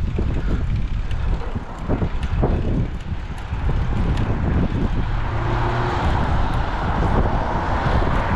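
Wind buffeting the microphone while cycling. From about five seconds in, a passing motor vehicle's rushing noise rises, with a brief hum in it.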